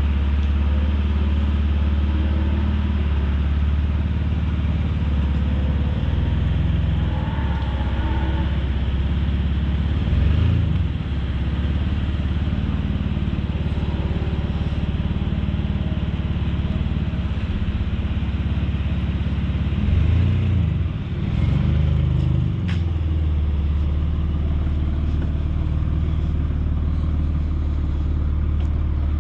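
Car engine running steadily at close range, its pitch shifting briefly about 10 seconds in and again around 20 to 22 seconds in.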